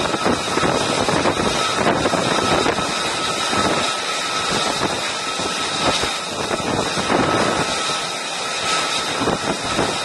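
F-35C's Pratt & Whitney F135 jet engine running steadily on deck, a dense rush of noise with a steady high whine, and wind buffeting the microphone.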